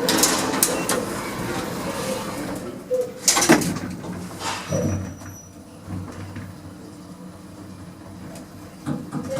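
Otis passenger lift: door movement with a loud knock about three and a half seconds in, then the steady low hum of the car running.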